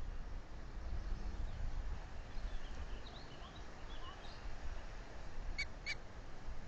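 Wind buffeting the microphone with a low rumble, with faint bird twittering in the middle and two short, sharp bird calls in quick succession near the end.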